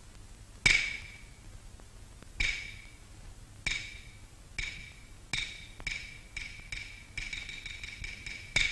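Wooden bangzi block of a Chinese opera percussion band struck in an accelerating pattern: about a dozen sharp, ringing knocks, well over a second apart at first and closing to several a second by the end.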